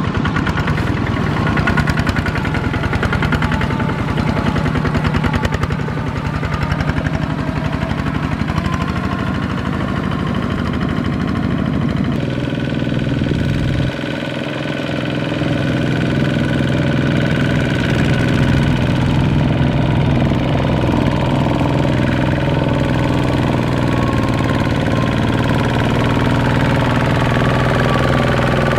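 Single-cylinder diesel engines of two-wheel walking tractors chugging steadily while hauling trailers through mud. The sound changes abruptly about twelve and fourteen seconds in as it switches from one machine to another.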